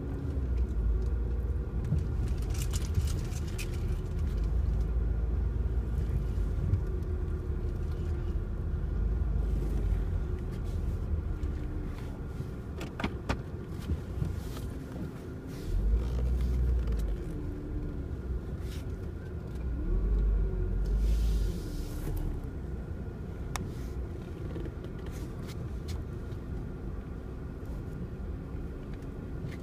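Chrysler 300 heard from inside the cabin while driving: a steady low rumble of engine and road noise that swells louder a few times, with a few brief clicks.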